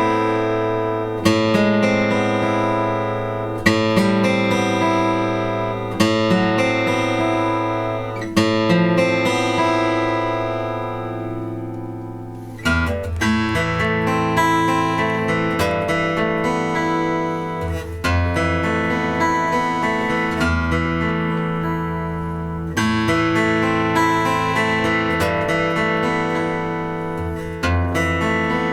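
Collins dreadnought steel-string acoustic guitar being played: chords struck and left to ring about every two and a half seconds, then from about halfway a busier picked pattern with a stronger low bass line.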